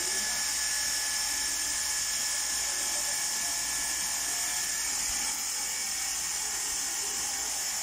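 Handheld electric water spray machine running continuously, a steady hiss of fine mist spray over a faint, even motor whine.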